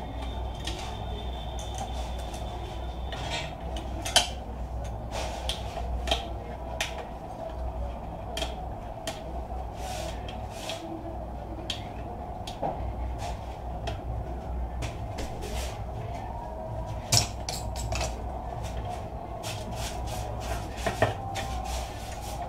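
Irregular metallic clicks and clinks from a screwdriver working screws on the sheet-metal case of a desktop computer power supply unit as it is handled, with a few louder knocks. A steady low hum runs underneath.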